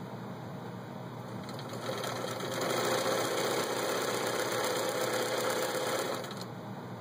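Vintage Bernina Record 830 sewing machine stitching one of its built-in decorative patterns through cloth. It starts about two seconds in, runs steadily, and stops about six seconds in.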